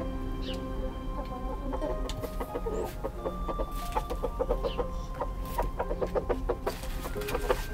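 Hen clucking in quick runs of short notes that get busier from about two seconds in, as she works to lay an egg.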